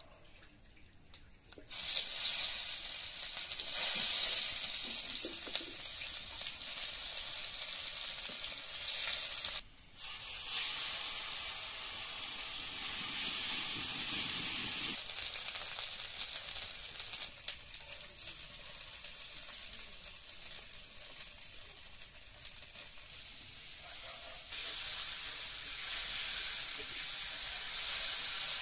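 Spice paste and onions frying in hot oil in an iron kadai: a loud, steady sizzle that starts suddenly about two seconds in, with light scraping of the ladle stirring the pan. The sizzle drops out briefly near ten seconds and swells louder near the end.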